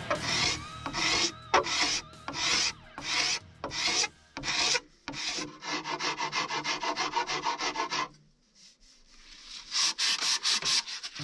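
Hand sanding of a wooden bow stave: abrasive rubbed back and forth along the wood in rhythmic strokes, at first about two to three a second, then in a faster run of short strokes. There is a brief pause about eight seconds in, then quick strokes resume.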